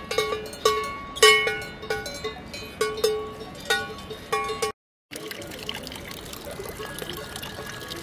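A cowbell on a grazing cow clanking at uneven intervals, about ten strikes of the same ringing pitch, each fading quickly. After a break about five seconds in, water trickles steadily from a spout into a stone trough.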